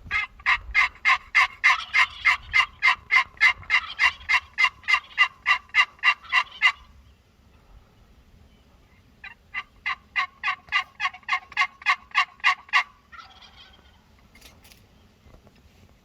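Turkey yelping: a long run of about twenty evenly spaced, loud yelps, then after a pause of a couple of seconds a shorter run of about a dozen.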